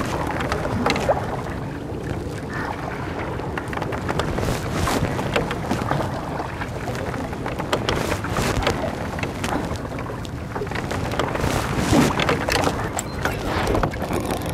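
Rowboat being rowed: steady water noise with irregular knocks and splashes from the oars, and wind buffeting the microphone.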